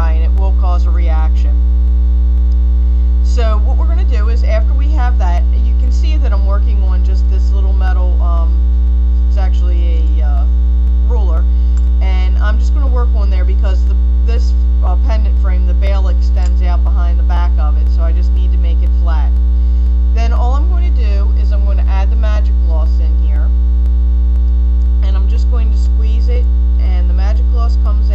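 Loud, steady electrical mains hum with a buzz of overtones above it. Faint wavering pitched sounds come and go over it.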